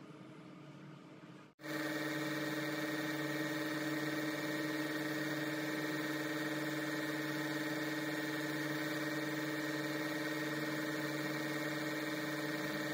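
Small electric pump of a facial machine, which drives the handpiece on a red hose. It starts suddenly about one and a half seconds in and then runs as a steady hum.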